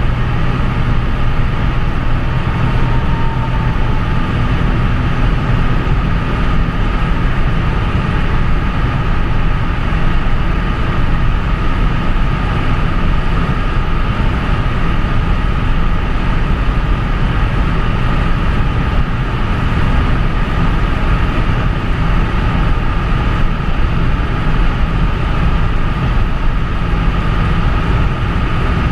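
Inside the cabin of a Wartburg 1.3 cruising on the motorway: steady engine drone from its Volkswagen-built 1.3-litre four-cylinder, mixed with tyre and wind noise, and a steady high whine running through it.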